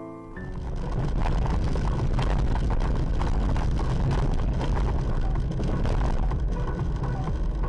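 Road and engine noise inside a moving car, picked up by a dashcam's microphone: a steady low rumble with a light rattle, starting about half a second in.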